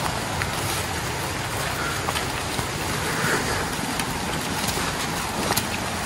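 Steady rushing of water, a river or falls mixed with rain, with a few faint taps over it.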